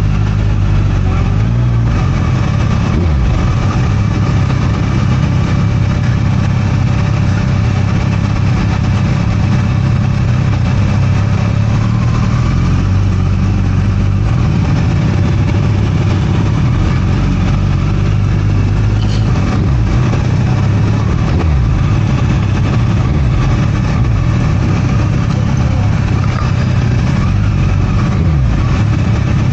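Motorcycle engine running at low speed and idling in slow traffic, heard close up from the bike itself, its low note stepping up and down a little with the throttle.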